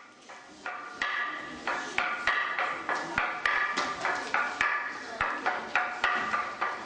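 Hand-held wooden semantron (toacă) beaten with a wooden mallet: a rhythm of sharp, ringing wooden knocks, about three a second, with the pitch changing from stroke to stroke. It starts with a few fainter taps and gets louder about a second in.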